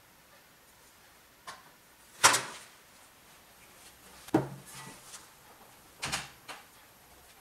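Thin sheet steel knocking against a steel form and vise as it is bent by hand into a hexagon section: a few sharp clanks, the loudest about two seconds in, then two more about two seconds apart.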